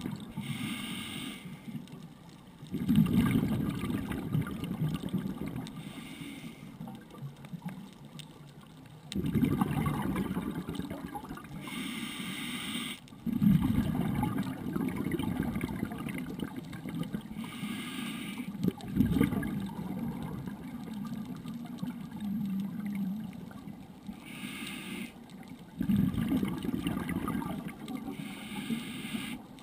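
Underwater scuba breathing through a regulator, recorded through a sealed dive housing. A short hiss of each inhale is followed by a louder rush of exhaled bubbles that fades over a few seconds, about five breaths, one every five to six seconds.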